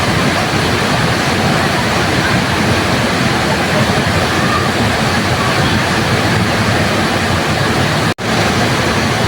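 Waterfall rushing in a steady, dense roar of falling water. The sound cuts out for an instant about eight seconds in and comes straight back, an edit splice in the recording.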